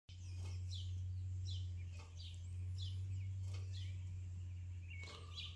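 Heinrici type HL hot air (Stirling cycle) engine running slowly and unevenly on a sterno-can flame, its heat still building and barely enough to keep it turning, with a knock about every second and a half over a steady low hum. Small birds chirp repeatedly in short falling notes.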